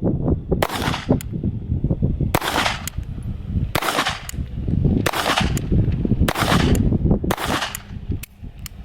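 Six shots from a Beretta Bobcat .22 LR pistol, fired slowly about a second apart, cycling Blazer rimfire ammunition without a malfunction.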